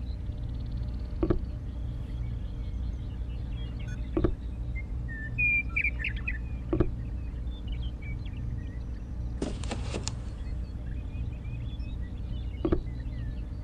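Small birds chirping over a steady low hum, with a sharp click every few seconds as miniature clay brick pieces are set in place. A brief hiss comes about ten seconds in.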